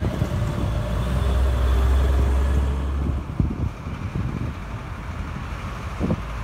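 Snow-removal machinery's heavy engine running with a steady low drone for about three seconds, then strong wind buffeting the microphone in irregular low gusts.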